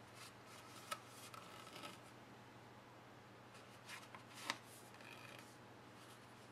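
Faint rustling and rubbing of a cardstock box being handled as double-sided sticky-strip tape is wrapped around it, with two short taps, about a second in and again midway through.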